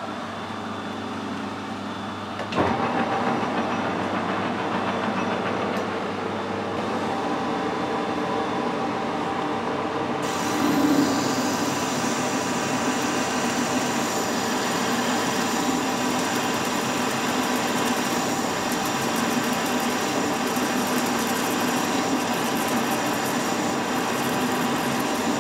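Metal lathe starting up suddenly about two and a half seconds in and running steadily. From about ten seconds in, a parting-off tool cuts into the spinning workpiece, adding a harsh, higher scraping sound over the lathe's running.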